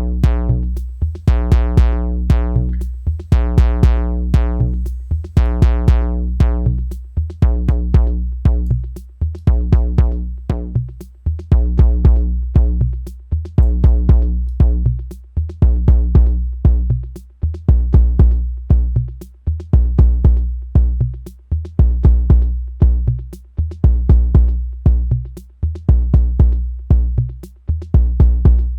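Arturia DrumBrute analog drum machine playing a steady looping beat, with short hi-hat ticks over it. Its kick drum is run through an overdrive effect, which gives it a grungy, distorted boom. The distortion is thickest in the first several seconds and then thins out.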